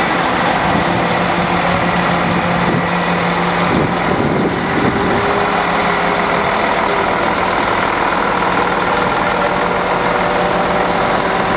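Heavy crane engine running steadily at a low, even hum.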